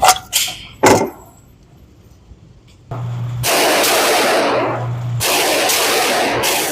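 Two gunshots about a second apart, close by and sharp, followed by a quiet couple of seconds. From about three seconds in there is a loud steady rushing noise with a low hum coming and going, whose source is not shown.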